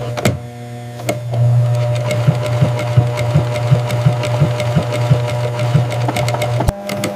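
A leather-working machine running with a steady hum and regular ticking about three times a second, after a couple of sharp clicks. Near the end the hum cuts off and a different, higher machine hum starts.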